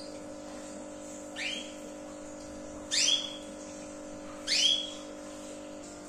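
Canary giving three rising whistled call notes about a second and a half apart, the second and third louder, over a steady low hum.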